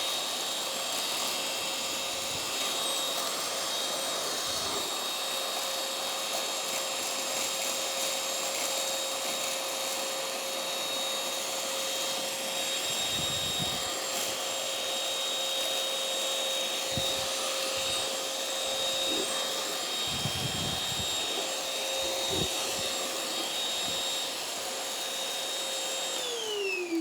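Oraimo UltraCleaner H3 cordless handheld vacuum cleaner running steadily with a motor whine, with a few dull knocks along the way. Near the end it is switched off and its motor pitch falls as it spins down.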